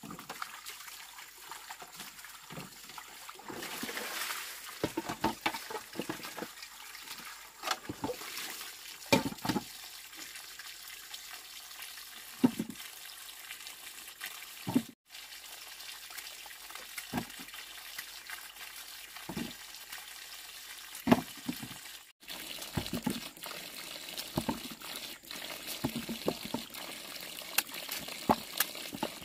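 Running, trickling water with frequent sharp knocks and clatters over it, as of things being handled and washed in the water.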